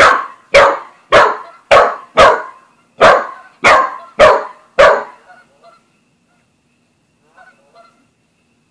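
Australian shepherd/corgi mix dog barking at a cat: nine loud, sharp barks at about two a second, stopping about five seconds in. A couple of faint short sounds follow near the end.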